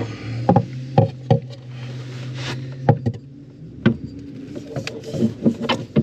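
Irregular knocks and clunks, about eight in all, as the heavy motor assembly of an electric anchor windlass is pushed and worked onto a tight-fitting shaft. A steady low hum sits under the first two-thirds and stops about four seconds in.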